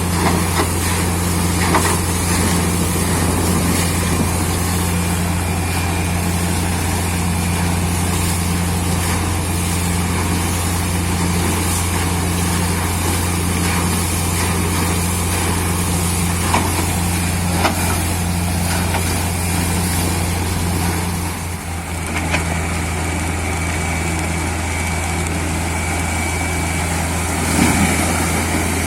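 Heavy engine and air compressor of a borewell drilling rig running steadily with a deep hum, with a short drop in level about three-quarters of the way through.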